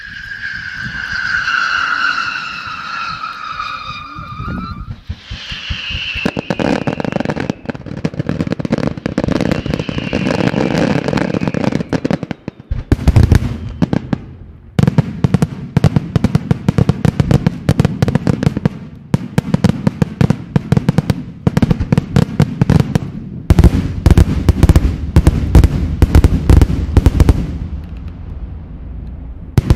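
Daytime fireworks going off. A whistling shell gives a falling whistle for the first few seconds. Then come dense crackling and rapid bangs, building into a continuous barrage of sharp reports that stops just before the end.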